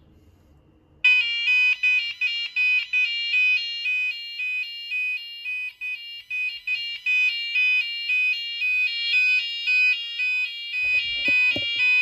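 Vintage DA Systems Abacus 8R alarm panel's sounder going off about a second in: a loud two-tone warbling alarm, its pitch flipping back and forth a couple of times a second. A few clicks come near the end and the alarm cuts off suddenly.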